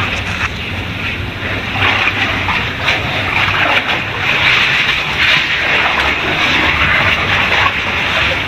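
Cave stream water rushing steadily, with sloshing and splashing as cavers wade through it.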